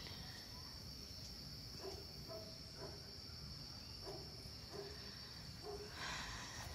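A faint, steady, high-pitched chorus of night insects, with scattered faint short low sounds. A brief louder noise comes near the end.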